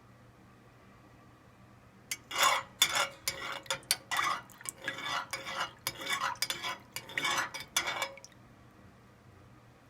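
A utensil stirring melting beeswax and mineral oil in a pot, with rapid, irregular clinks and scrapes against the pot, to finish melting the wax into the oil. The stirring starts about two seconds in and stops about eight seconds in.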